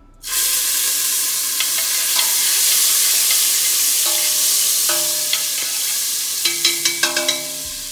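Garlic sizzling loudly in hot oil in a frying pan. The sizzle starts suddenly just after the start and eases slightly toward the end, with a few short ringing taps near the end.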